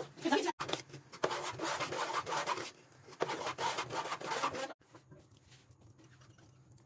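Rapid rubbing, scraping strokes, such as a utensil scraping in a kitchen. They stop abruptly about two-thirds of the way through, leaving faint room noise.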